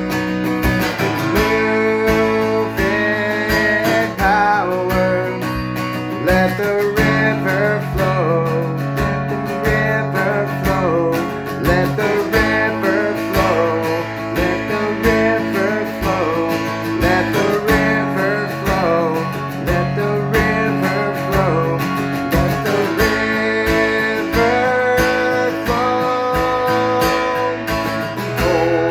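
Instrumental worship band music in E, led by strummed acoustic guitar, with a melody moving over sustained chords and a steady beat.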